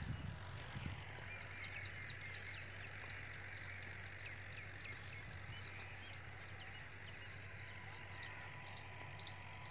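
A bird calling in a quick run of short repeated chirps, about five a second, over a steady outdoor hiss, with a few low knocks at the start.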